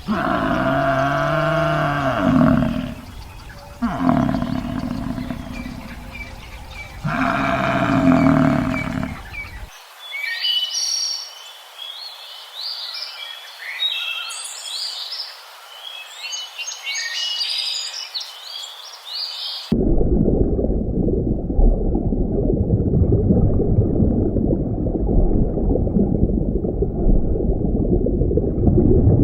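Three long, low animal calls, each bending in pitch, then about ten seconds of birds chirping, then a steady low rumbling noise that cuts off abruptly near the end.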